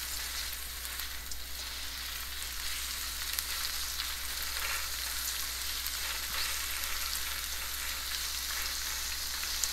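Sliced red onions sizzling in oil in a pan as they soften, stirred by a spatula with faint scraping against the pan.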